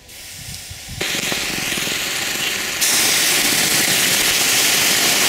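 Water poured from a bottle onto a freshly fallen volcanic bomb hisses and sizzles as it turns to steam on the still very hot rock. The hiss starts about a second in and grows louder a couple of seconds later.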